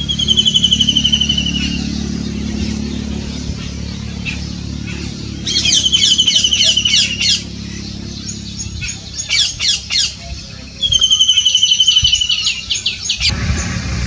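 White-throated kingfisher calling: three bouts of a fast, high rattling trill, each lasting a couple of seconds, over a steady low rumble.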